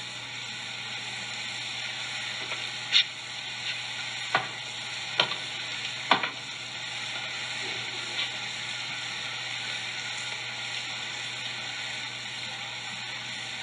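Soundtrack of a film excerpt played over a hall's speakers during a wordless stretch: a steady hiss with several sharp clicks or knocks between about three and six seconds in.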